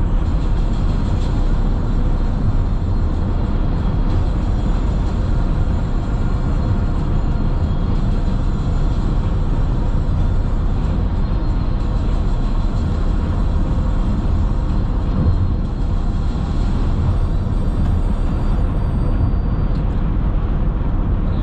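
Steady road and engine noise of a car cruising on a highway, heard from inside the cabin: a constant low drone with no distinct events.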